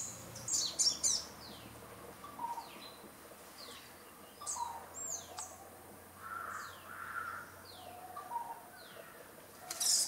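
Small birds calling: a thin falling whistled note repeated about once a second, with sharper bursts of chirping about a second in and again near the end.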